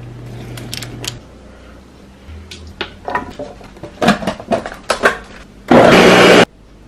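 Ninja Pro Touch countertop blender running briefly, loud and even, for just under a second near the end before cutting off suddenly, puréeing roasted squash into soup. Before it, irregular knocks and clatter of roasted vegetables being loaded into the plastic blender jar.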